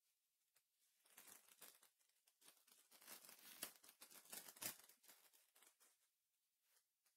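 Faint crinkling and tearing of a foil trading-card booster pack being opened by hand, starting about a second in, loudest in the middle and dying away about a second before the end.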